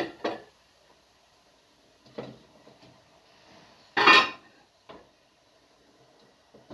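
Kitchen clatter of pots, pans and dishes being handled: a few separate knocks and clanks with quiet between them, the loudest and longest about four seconds in.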